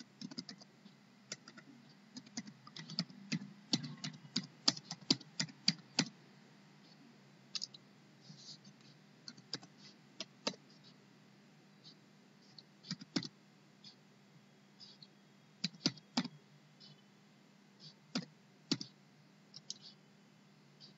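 Typing on a computer keyboard: a quick run of keystrokes for the first six seconds or so, then scattered single keystrokes.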